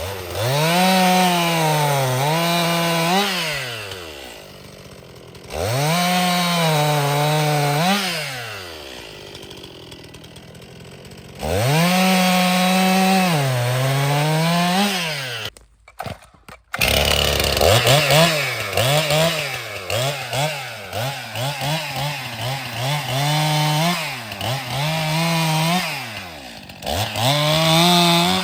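Stihl MS261 C-M two-stroke chainsaw bucking firewood: it revs up to full throttle, its pitch sags and recovers under load in each cut, and it falls back to a quieter idle between cuts. There are three separate cuts, a brief drop-out about halfway, then a longer stretch of quick rev changes.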